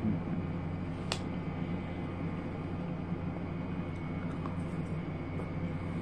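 A metal spoon clinks once against the bowl about a second in, over a steady low hum, with a few faint small clicks later on.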